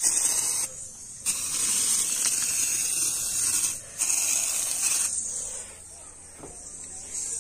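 Home-refilled aerosol spray paint can, pressurised with a pump and loaded with paint thinned with kerosene, hissing as it sprays paint in three bursts, the longest about two and a half seconds; after about five seconds the hiss turns faint.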